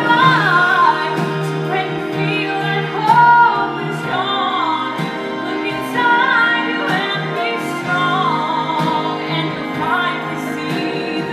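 A woman singing a slow ballad, live, in long phrases with vibrato over sustained instrumental accompaniment.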